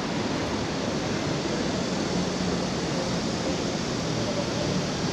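Steady rushing noise of an outdoor city street, with no distinct events.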